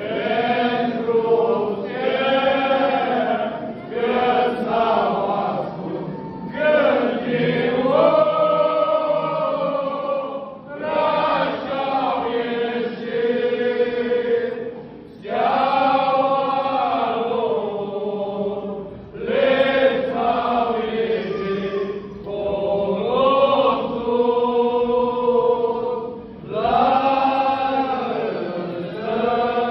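A group of men singing a Romanian Christmas carol (colindă) a cappella in the Oaș style, in sung phrases of a few seconds each with short breaks for breath.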